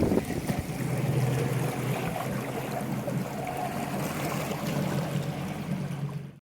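A boat motor running with a steady low hum, mixed with water and wind noise, cutting off suddenly near the end.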